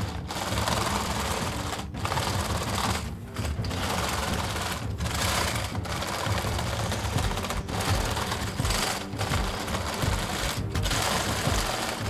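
Plastic link tracks and road wheels of a brick-built Panzer VIII Maus model clattering as the hull is rolled by hand across a tabletop. The rattle breaks off briefly every second or two as it changes direction.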